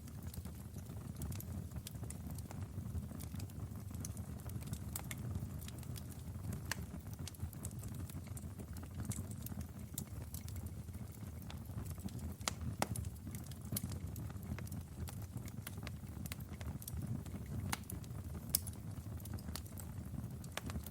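Wood fire burning in a fireplace: a steady low rumble of flames with irregular crackles and pops, a couple of them louder than the rest.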